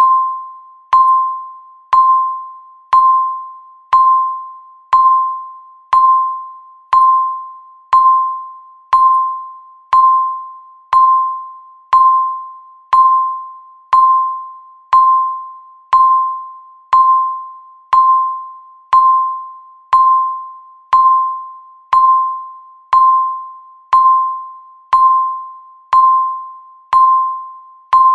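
Countdown timer's electronic tick sound: one short, bell-like ping at the same pitch every second, each one dying away before the next.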